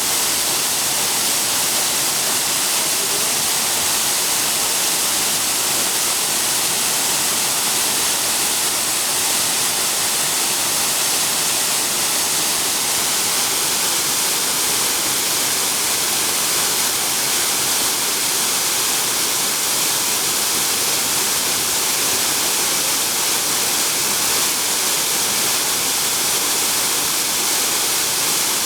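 Waterfall pouring, a loud steady rushing hiss of falling water that does not let up.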